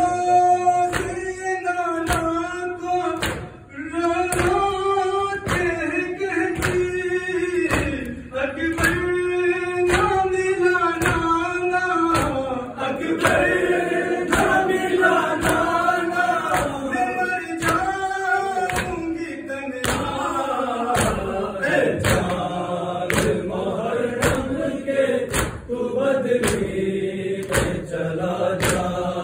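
A noha chanted by men's voices in a mourning gathering, kept to a steady beat of sharp slaps, the rhythmic chest-beating (matam) of the mourners. From about two-thirds of the way in, the singing drops lower and fuller as more voices join in.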